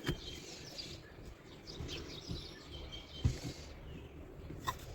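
Faint bird chirps in the background, with a sharp click at the start, a soft knock a little past the middle and a click near the end.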